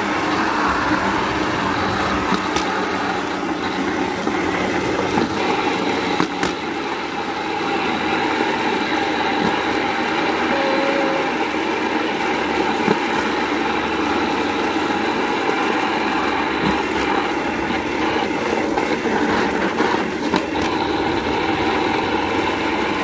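Small engine of a motorized rail trolley running steadily as the cart rolls along the tracks, with a few sharp knocks.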